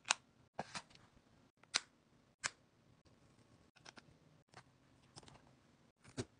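Small hard plastic clicks and snaps from a plastic case being opened and a travel bottle's cap being handled. About a dozen short, sharp clicks, the loudest in the first two and a half seconds and softer ones after.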